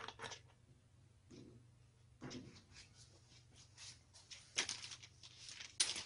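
Faint, scattered clicks and scrapes of a chrome faucet coupling being threaded by hand onto a T-valve fitted to a water tap.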